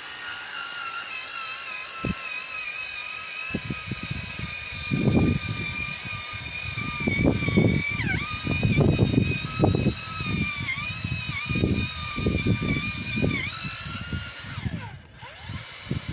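Power drill running under load as it bores down into the ground, a steady high motor whine with heavy grinding underneath. The whine sags briefly several times as the bit bites, then stops near the end.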